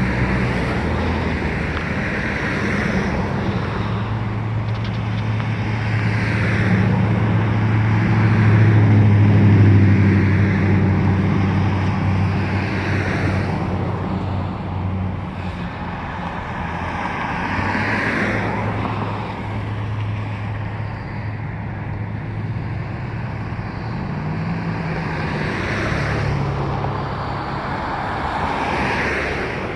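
Road traffic: cars passing one after another, each a swell of tyre and engine noise, over a steady low hum that is loudest about nine seconds in.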